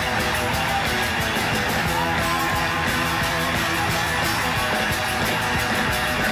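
Live rock band playing a song led by strummed acoustic and electric guitars, steady throughout.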